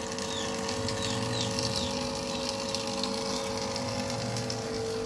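Miyako battery-powered electric gallon water pump running with a steady motor hum while water streams through its hose into a plastic bottle with a steady hiss. A few short high chirps come in the first couple of seconds.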